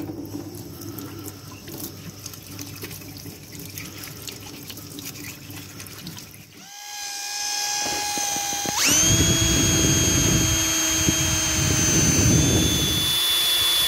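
Tap water running into a stainless steel sink as a small computer fan is rinsed under it. About halfway through, a cordless drill fitted with a wire wheel starts up with a whine that jumps sharply higher in pitch and runs on louder, brushing the corroded nickel plating off a CPU heat sink.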